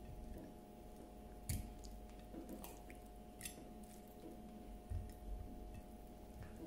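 A hand handling raw steak on a plate: a few faint, soft, wet squishes and clicks, spaced a second or two apart, over a steady faint hum.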